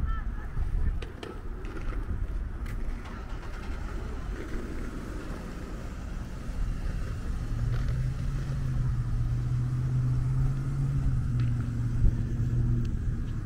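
Road traffic: a car engine runs with a steady low hum, starting about halfway through and fading out near the end, over a low rumble of traffic noise.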